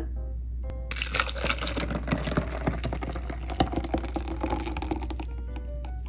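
Thin canelé batter poured from a glass bowl into a round plastic cup: a splashing, gurgling pour that starts about a second in and stops about five seconds in.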